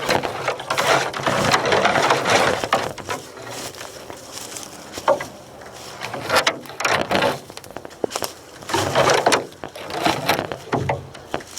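Dry leaves and twigs crunching and brush rustling in irregular surges as someone moves on foot through the woods, with a few sharp snaps among them.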